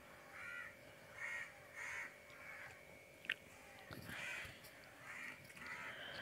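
Faint, repeated short bird calls, about seven in all, with a single sharp click about three seconds in and a soft thump just after.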